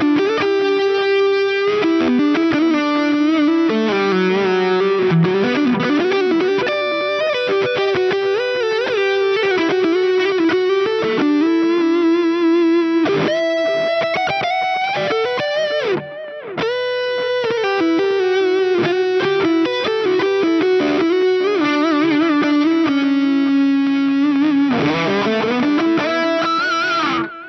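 Electric guitar on the neck pickup played through a Fractal Audio FM9 modelling the Subway Blues amp into a 4x12 Rumble EV12L cab, a smooth, fat, lightly overdriven tone. It plays single-note lead lines with string bends and vibrato, stopping abruptly at the end.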